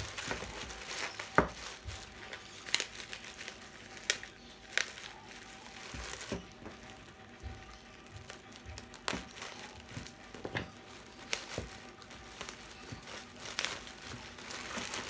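Black plastic bubble wrap around a parcel crinkling and crackling in irregular bursts as hands handle and pull it open, with a few sharp clicks as scissors cut through the wrap.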